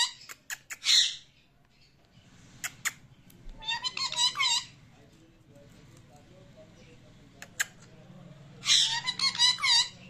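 Indian ringneck parakeet giving three short bursts of rapid, high, squeaky chirping calls: about a second in, in the middle, and near the end. A few sharp clicks fall between the bursts.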